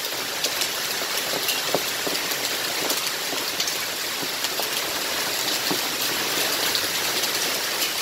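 Hailstorm with heavy rain: a steady hiss of falling rain with many sharp ticks of hailstones striking.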